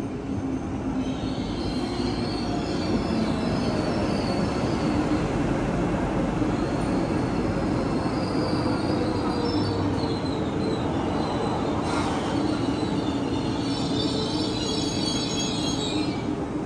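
KTX-Eum electric train pulling along the platform and slowing to a stop: a steady rumble with a motor whine that falls slowly in pitch, and high-pitched squealing that comes and goes, strongest near the end.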